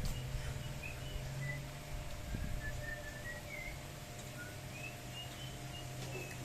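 Small birds chirping faintly in short, scattered notes over a steady low hum.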